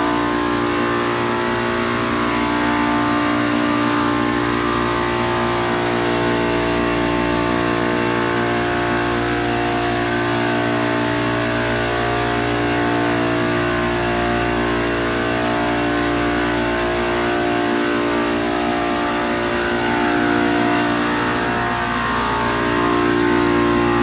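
Hermetic scroll compressors of a Multistack modular water chiller running steadily: an even, loud machine hum made of several steady tones, with no start or stop.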